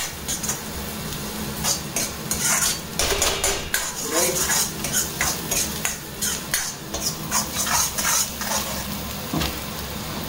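Metal spoon scraping and clinking against a wok while chopped garlic and ginger sizzle in hot oil over a high gas flame. The scrapes come often and irregularly over a steady sizzle.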